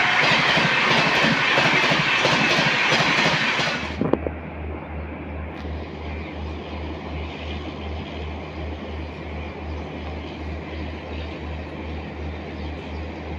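A loud whooshing intro sound effect that cuts off abruptly about four seconds in. It gives way to the steady noise of an approaching train in the distance, with a low throb pulsing about three times a second.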